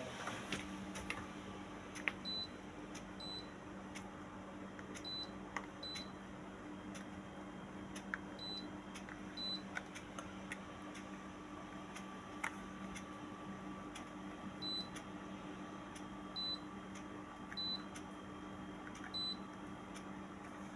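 Electrolux ESM05CRIA1 split air conditioner indoor unit giving about ten short high beeps at irregular intervals, the acknowledgement beeps as settings are changed from the remote. Faint clicks are heard between them, over a steady low hum.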